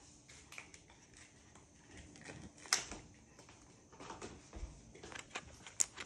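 Scattered soft clicks and rustles of a card binder's plastic sleeve pages being handled, with a sharper click about two and a half seconds in and another near the end.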